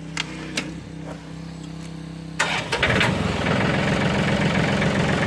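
John Deere 790 compact diesel tractor engine idling low, then about two and a half seconds in it is throttled up sharply with a few clanks and runs on louder and steady, ready to drive the baler.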